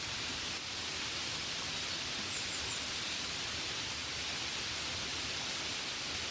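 Gentle rain falling steadily, an even hiss with no breaks, with three faint high chirps about two and a half seconds in.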